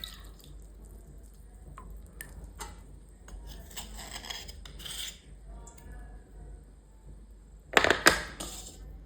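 Small hard items being handled and set down: scattered light taps and clinks, with a louder clatter near the end.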